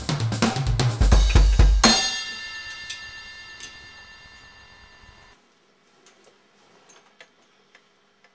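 Roland electronic drum kit played hard, with kick, snare and cymbal hits, ending on a final crash about two seconds in. The crash rings and fades for a few seconds, then cuts off abruptly. A few faint taps follow.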